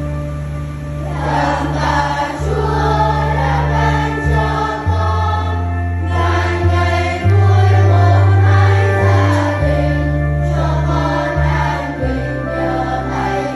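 Electronic organ playing a hymn, its sustained bass pedal notes changing every second or two. From about a second in, a choir sings the tune over it.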